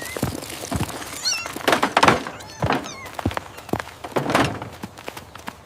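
A quick run of thuds and knocks, with a few short high chirps about a second in and louder rushing noises around two and four seconds in.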